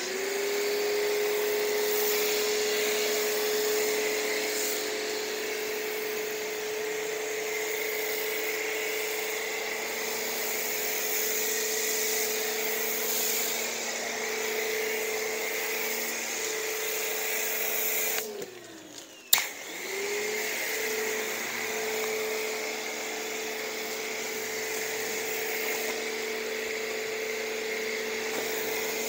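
Pressure washer running steadily while it sprays foam through a foam cannon: a constant motor hum with the hiss of the spray. About two-thirds of the way through the motor winds down for about a second, there is a sharp click, and it spins back up to speed.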